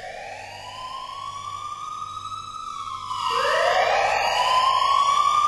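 Two synthesized rising sweeps from a TV title intro, each gliding up in pitch and then levelling off. The second comes in about three seconds in and is louder than the first.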